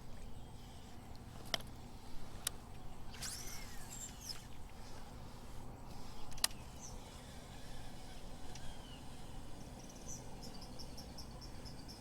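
Outdoor ambience over a steady low hum: a few sharp clicks, bird-like chirps a few seconds in, and a rapid series of high chirps near the end.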